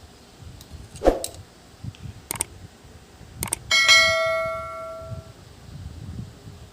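A few sharp metal knocks, then a piece of metal struck once and ringing clearly for about a second and a half as it fades.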